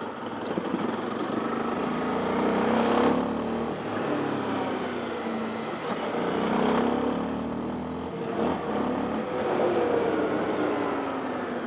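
Single-cylinder engine of a Honda XRE 300 Adventure motorcycle under way, its pitch rising and dropping back about three times as the bike accelerates, with wind rush.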